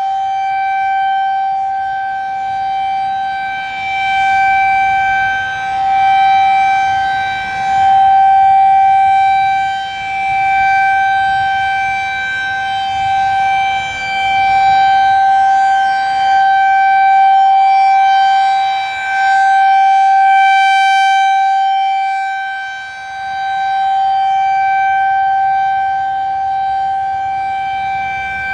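Federal Signal 2001-SRN electromechanical outdoor warning siren sounding a steady, high-pitched tone at full speed during a scheduled test. Its pitch holds level, and its loudness swells and fades every few seconds.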